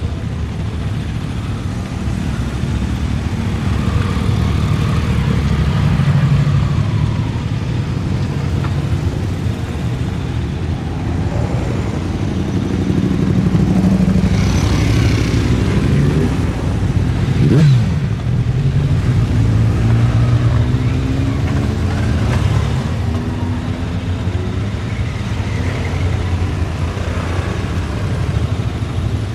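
Many motorcycle engines running at once as a column of bikes rides slowly past at close range, revs rising and falling as riders pull away; one short, sharp rev about two thirds of the way through.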